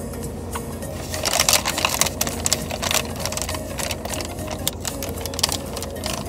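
Paper bag and wrapper crinkling and crackling in the hands as a samosa is taken out, with dense irregular crackles for a few seconds from about a second in.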